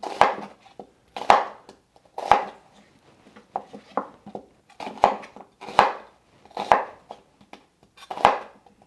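Kitchen knife cutting an onion into wedges on a wooden cutting board: a slow series of about nine cuts, roughly one a second, each a crunch through the onion ending in a knock of the blade on the board.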